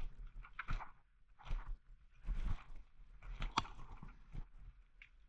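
Footsteps crunching through dry woodland undergrowth, in uneven steps with a few sharper snaps.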